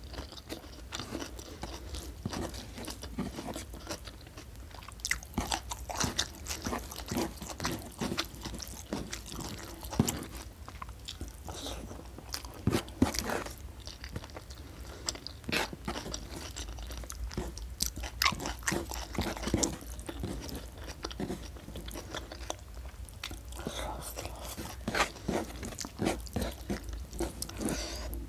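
Close-miked chewing of a mouthful of rice and food, with wet mouth clicks and irregular crunches.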